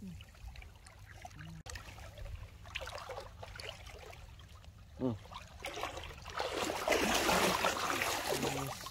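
Water splashing and trickling, swelling louder for about two seconds near the end.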